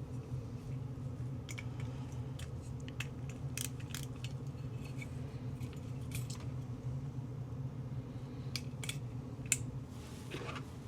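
Light metallic clicks and clinks of small tools and parts being handled on a workbench, scattered irregularly with the sharpest click near the end, over a steady low hum.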